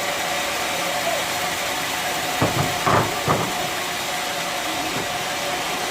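Bandsaw sawmill running steadily between cuts, a constant hum and hiss with a steady tone. A few short, louder sounds come about halfway through.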